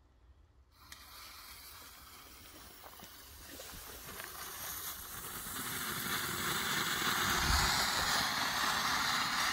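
Small firework fountain (a Pyroart Glanzpunkte silver-star volcano) hissing as it sprays sparks, starting about a second in and growing steadily louder over the next several seconds.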